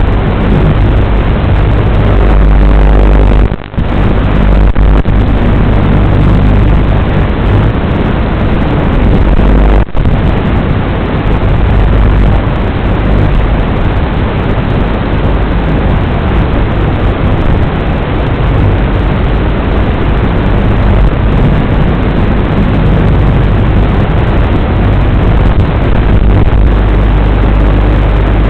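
WLToys 12418 RC car running, its electric motor and drivetrain giving a loud, harsh, continuous noise picked up close by, with two brief dropouts, near four and ten seconds in.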